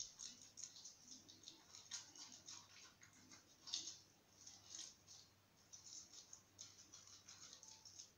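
Faint, irregular swishing strokes of a cut lemon half being rubbed against the skin of the face, a few strokes a second.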